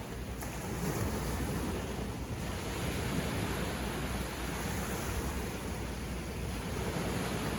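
Sea waves washing onto the beach in a continuous surf wash, swelling a little about a second in, with some wind on the microphone.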